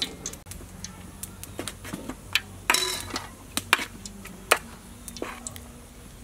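Metal kitchen tongs clicking and tapping against a mixing bowl while battered chicken pieces are lifted out and turned in dry coating flour, with one longer, louder sound nearly three seconds in.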